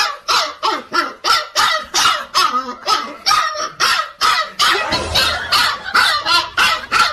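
Dog barking rapidly and repeatedly, about three barks a second.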